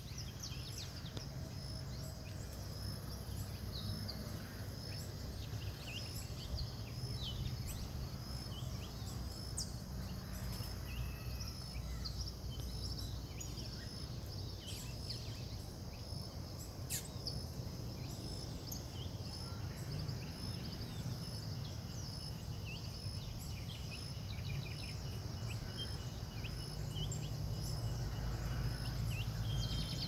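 Several birds give scattered short chirps and calls. Under them runs a steady, regular high-pitched pulsing chirr, like insects, and a continuous low rumble on the microphone.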